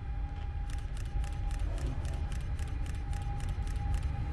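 A Siemens Vectron electric locomotive approaches from a distance: a low rumble with a thin steady whine. A light, fast ticking, about four ticks a second, starts about a second in and stops near the end.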